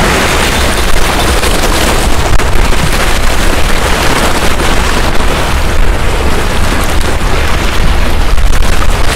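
Wind buffeting the microphone with a steady low rumble, over sea waves washing against the rocks.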